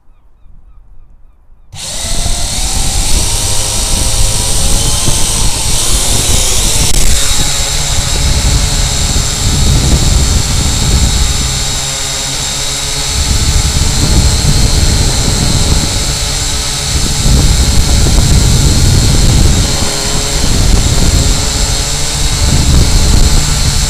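Syma X8W quadcopter's motors and propellers spinning up suddenly about two seconds in, then running through takeoff and flight with a steady high whine that shifts in pitch around six seconds in. Heavy wind buffeting rumbles on the onboard camera's microphone.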